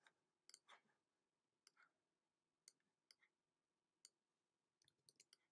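Faint, scattered clicks of a computer mouse as letters are placed on a design, with a quick run of four or five clicks near the end; otherwise near silence.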